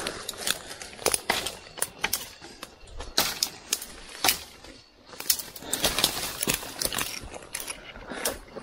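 Dry leaves and twigs rustling and crackling, with irregular sharp snaps several times a second, as someone pushes on foot through dense undergrowth.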